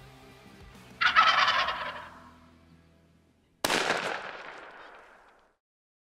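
A turkey gobbling once, a loud rapid rattling call about a second in that fades out, followed about two and a half seconds later by a single shotgun shot, a sharp crack that dies away with an echo.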